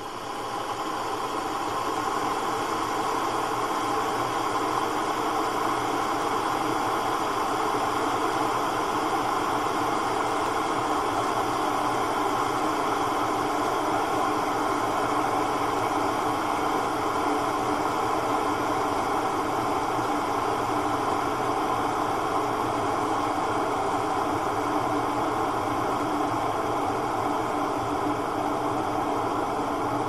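Kettle heating water toward the boil: a steady rumbling hiss that swells over the first couple of seconds, then holds even.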